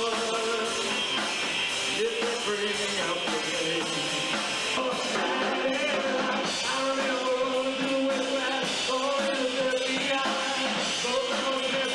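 A rock song with a singer holding long notes over a full band backing at a steady loudness.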